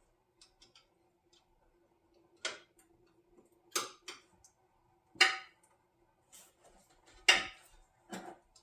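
About six sharp clicks and knocks at uneven intervals, hand tools and parts being handled while working on the radiator hoses and fittings. The two loudest come about five and seven seconds in. A faint steady hum sits underneath.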